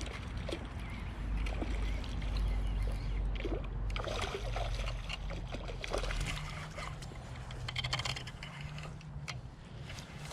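Water splashing and sloshing close by, with scattered clicks and knocks over a low rumble, as a hooked fish is brought in.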